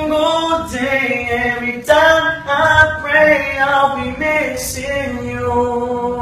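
A man singing a slow song, holding long notes with sliding pitch.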